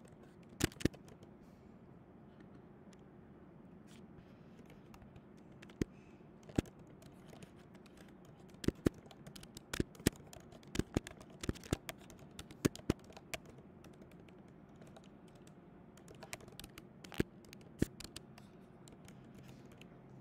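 Irregular keystrokes and clicks on a computer keyboard, typing in short bursts with pauses, over a faint steady hum.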